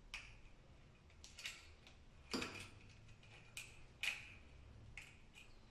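A handful of light metallic clicks and taps at uneven intervals, the loudest about two and a half seconds in, as the metal parts of a mortise lock body are handled while its latch bolt is turned round.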